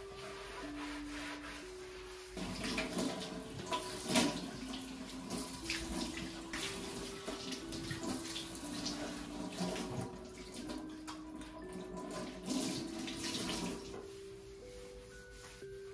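Water running from a tap into a sink, starting about two and a half seconds in and easing off near the end, with splashes and small knocks mixed in. Soft background music plays throughout.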